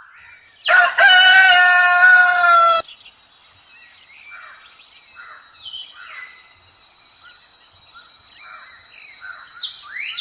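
A rooster crows once, a loud call of about two seconds that sags slightly in pitch at the end, followed by faint scattered bird chirps over a steady hiss.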